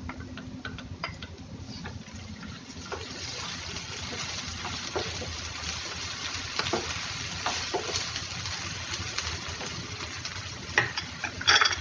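Onions, whole spices and ginger-garlic paste sizzling in hot oil in a pan, the sizzle swelling a few seconds in, with short clicks and scrapes of a spoon stirring. A louder clatter comes near the end.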